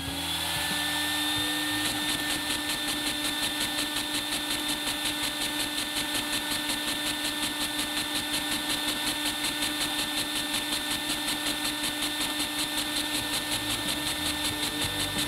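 Vacuum cleaner drawing air through a LEGO single-cylinder round-piston pushrod vacuum engine, which runs steadily with a fast, even pulsing over the vacuum's constant whine. The engine runs pretty decently.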